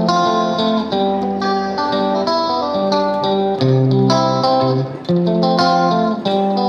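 Background music: a guitar tune of plucked notes.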